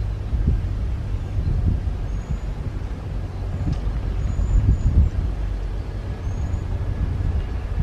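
Strong wind buffeting the microphone: a low, gusting rumble that rises and falls irregularly.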